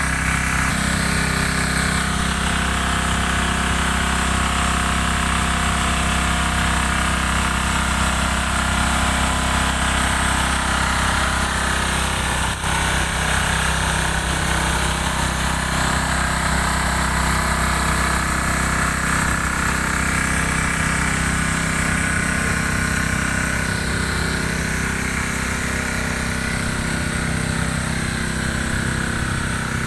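Boat's engine running steadily at an unchanging speed, a continuous mechanical drone.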